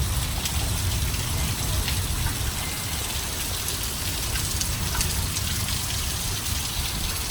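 Rain pouring steadily in a thunderstorm, with wind rumbling low on the microphone.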